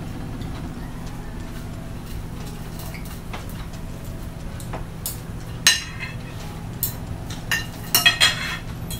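Metal spoon and fork clinking and scraping on ceramic plates while eating, a scattering of sharp clinks in the second half, over a steady low hum.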